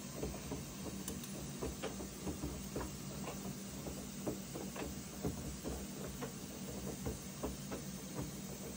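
Front-loading washing machine in its wash cycle: the drum turns with a steady motor hum while wet laundry tumbles and water sloshes, giving irregular soft knocks and splashes a few times a second.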